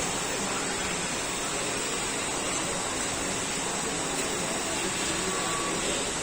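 Steady rushing background noise, even throughout, with no distinct sounds standing out.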